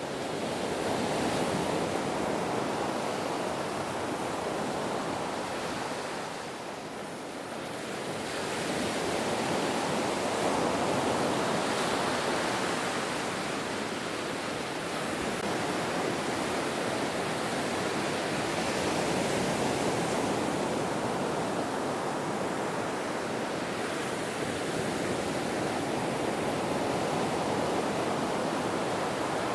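Ocean surf: a continuous wash of breaking waves that eases briefly about six seconds in, then swells back up.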